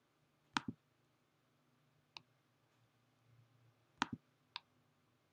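Computer mouse button clicks against quiet room tone: a quick double click about half a second in, a single click around two seconds, another double click about four seconds in, and a single click just after it.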